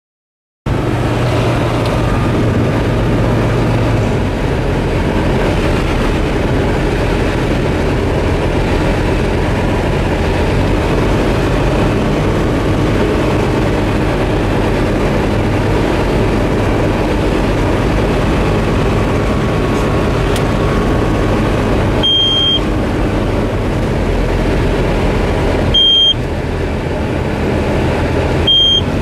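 Cockpit noise of a Tecnam P2002-JF light aircraft on final approach: its Rotax 912 engine and propeller running steadily, cutting in abruptly about a second in. Near the end come three short, high-pitched beeps.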